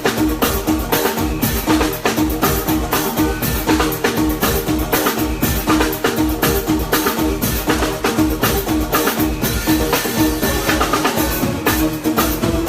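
Live band playing at a sound check: a drum kit keeps a steady beat over a sustained bass line.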